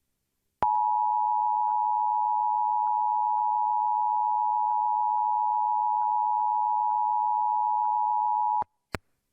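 Emergency Alert System attention tone: a steady electronic tone held for about eight seconds that starts and cuts off abruptly, signalling that a new weather alert is about to be read. A single short click follows the tone.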